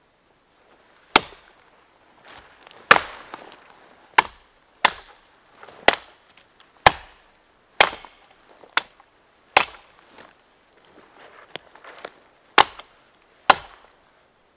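Homemade billhook chopping branches off a small felled conifer: about a dozen sharp chops, roughly one a second, with a pause of a few seconds before the last two.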